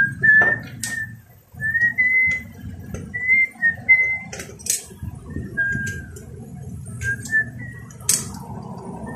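A run of about ten short whistled notes, each held briefly near one fairly high pitch with small rises and dips, over a low background rumble. A few sharp clicks come as tools are handled on the opened DVD player's circuit board.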